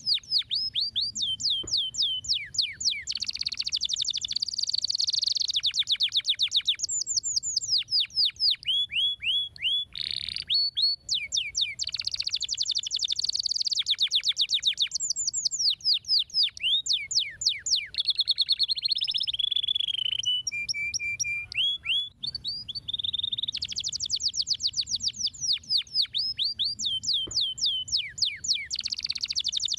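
Domestic canary singing a long, continuous song of rapid trills and rolling phrases, with a few slower, lower held notes around two-thirds of the way through.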